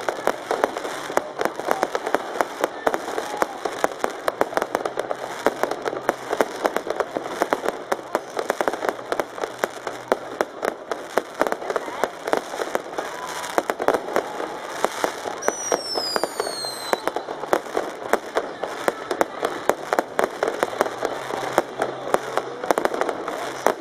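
Fireworks and firecrackers going off in a dense, continuous stream of bangs and crackles. About 15 seconds in, a firework's whistle falls in pitch for a second or so.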